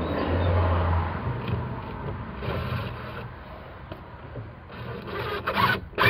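Rubbing and scraping handling noise as a screw is set into a steel gate latch plate on a wooden gate and a cordless impact driver is brought up to it, with rustling of a rain jacket; loudest in the first second, with a few sharper knocks near the end.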